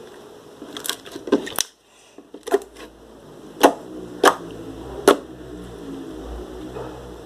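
A series of sharp clicks and knocks from objects being handled: a quick cluster, a brief moment of silence about two seconds in, then three louder single clicks evenly spaced.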